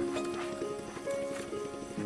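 Background music: a slow melody of long held notes that step from one pitch to the next.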